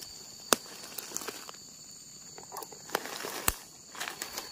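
Footsteps on dry leaf litter, with two sharp snaps, one about half a second in and one near the end. A steady high insect buzz runs underneath.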